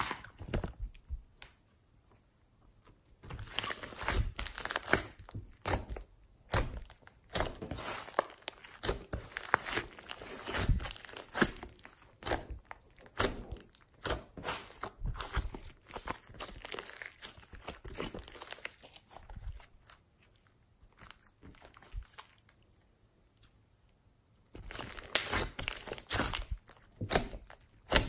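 Slime being squeezed, stretched and pressed by hand, giving irregular crackling, crunching and popping clicks. The handling pauses briefly about two seconds in and again for a few seconds past the twenty-second mark.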